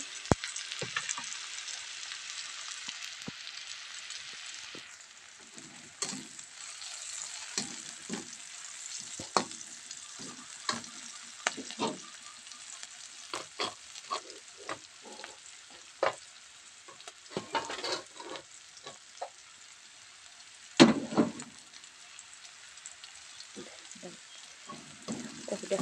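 Sliced shallots, garlic and chilli sizzling in hot oil in a wok, being fried until fragrant, while a slotted spatula scrapes and taps against the pan. The sizzle eases about five seconds in, and one louder knock comes about three quarters of the way through.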